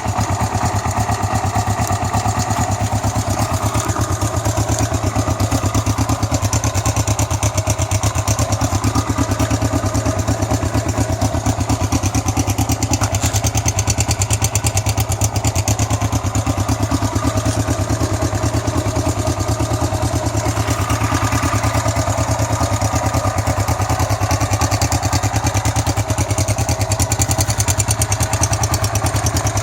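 Kawasaki GPZ305's air-cooled parallel-twin engine idling steadily and evenly, running well after a restoration with valve clearances set and a new timing chain tensioner.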